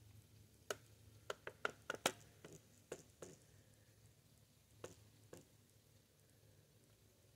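Irregular sharp ticks and taps over a faint steady low hum: a quick cluster of about a dozen in the first few seconds, then a few scattered ones.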